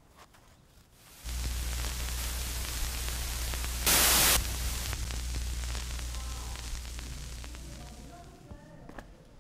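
Television static: a hiss over a low electrical hum cuts in about a second in, jumps to a brief, louder burst around four seconds, then fades away by about eight seconds.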